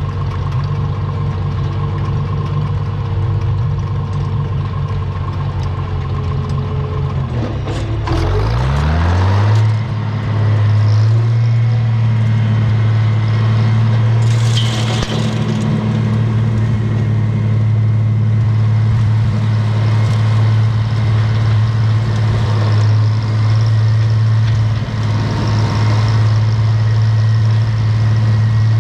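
Farmall 706 tractor engine running, then revving up about eight seconds in and holding steady at the higher speed. A short hiss comes about halfway through.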